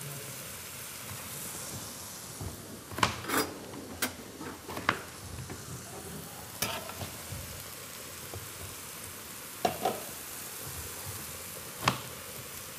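A chef's knife cutting peeled taro on a cutting board: scattered sharp knocks of the blade against the board, about eight in all, most in the first half. Under them runs a steady sizzle of onion, garlic and coriander frying in a pot.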